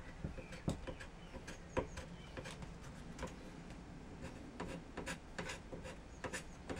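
Round steel card scraper scraping glue residue and Danish oil off an ash chair post: faint, irregular light ticks and scratches of the blade's burr taking off fine shavings.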